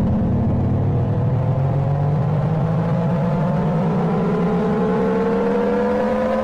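Emergency alert alarm audio played in reverse: a loud, rough buzzing tone made of several pitches that slowly rise together.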